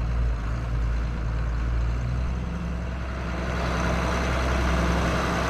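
John Deere 4440's six-cylinder turbo diesel running steadily, its note changing slightly about two seconds in.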